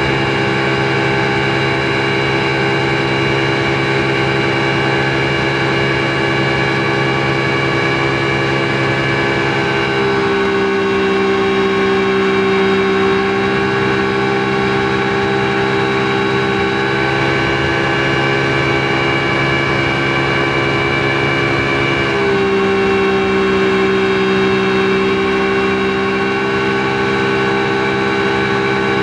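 Speedboat engine running steadily under way, its note shifting abruptly about a third of the way through and again about three-quarters of the way through.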